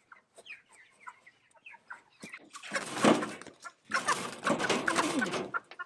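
Cornish cross broiler chickens clucking softly, then two loud bouts of wing-flapping and squawking, about three seconds in and again from about four seconds to near the end, as a caught bird is pushed into a wire crate.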